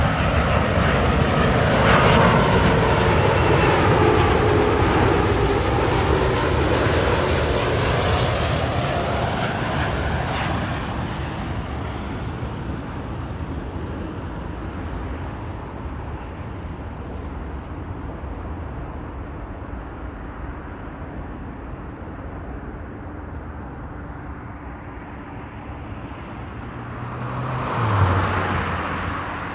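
Airbus A330-300 freighter's Rolls-Royce Trent 700 jet engines as it comes in to land: loud at first, with a whine falling in pitch as it passes, then slowly fading. The sound swells again briefly near the end.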